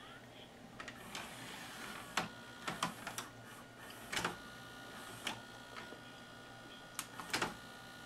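Magnavox ZV427MG9 DVD-VCR's cassette loading mechanism drawing a VHS tape down: a run of irregular mechanical clicks and clunks, with a faint steady whine setting in about halfway. It is loading properly now that the broken plastic loading arm has been replaced.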